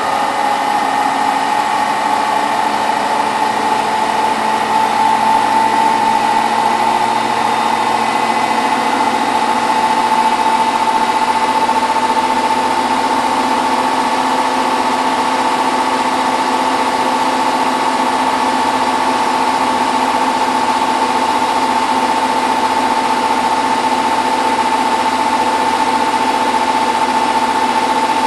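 Hotpoint WT960 washing machine in its final 1600 rpm spin: a steady, loud motor and drum whine, its pitch creeping up slightly over the first few seconds and then holding at full spin speed.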